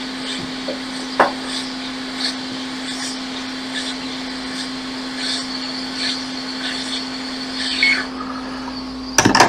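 Hot-air rework station blowing steadily with a constant low hum, heating the solder under an iPhone XR charging IC to lift it off the logic board. A sharp click about a second in, faint ticks of tweezers on the board, and a brief louder noise near the end.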